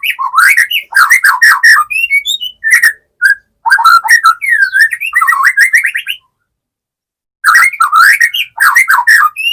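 White-rumped shama (murai batu) giving loud runs of quick chirps and whistled notes in three groups, with a silent gap of about a second before the last one. This is the unusual calling of a shama in breeding mode.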